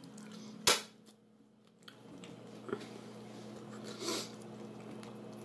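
Cooked lobster being picked apart by hand: one sharp snap about a second in, then a softer crackle of shell as the lobster's body is pulled apart near the end, over a faint steady low hum.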